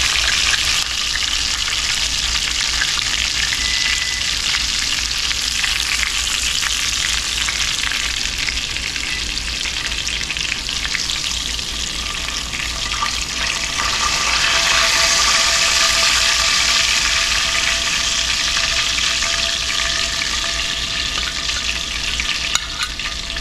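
Chicken pieces frying in shortening in a cast iron skillet: a steady, dense sizzle that swells for a few seconds around the middle.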